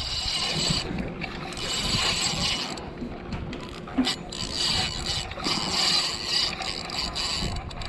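Spinning fishing reel being cranked close to the microphone, mechanical ratcheting mixed with rubbing and scraping of hands on the rod and reel, with a sharp click about four seconds in.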